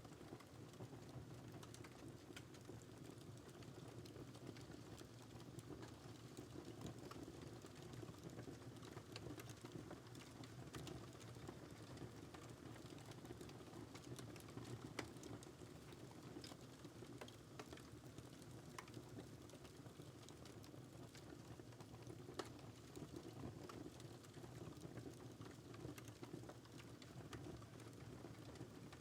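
Faint crackling wood fire in a fireplace: a soft steady rumble with scattered sharp pops and crackles.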